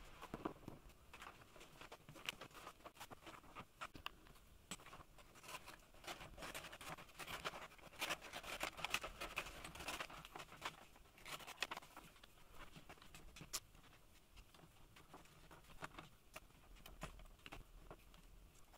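Faint rustling and crinkling of a stiff paper sheet being handled and flexed around a wooden lampshade frame, with many light taps and clicks, busiest around the middle.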